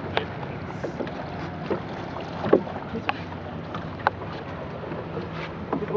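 Water and wind noise on a small paddled boat, with a low steady hum and a few irregular knocks, the loudest about halfway through.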